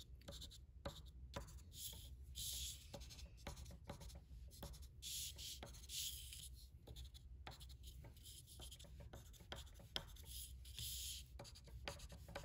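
White chalk scratching and tapping faintly on light blue paper as snow dots and short strokes are drawn: several brief scratchy stretches with light taps between them.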